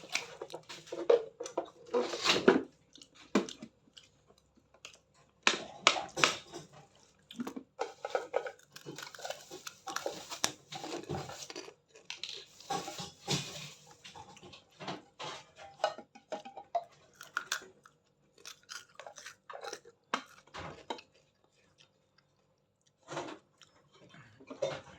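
Close, irregular crunching, clicking and crackling handling sounds, in clusters with short pauses, thinning out in the second half.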